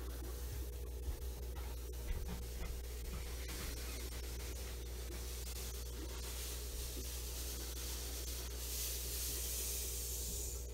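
Fine white pool filter sand poured from a plastic cup into an aquarium, a soft hissing trickle that grows louder near the end, over a steady low hum.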